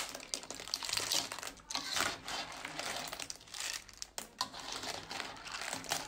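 A spatula stirring and tossing saucy seafood in a metal pan: cockle shells and crab pieces clatter against each other and the pan in a continuous, busy run of small clicks and rustles.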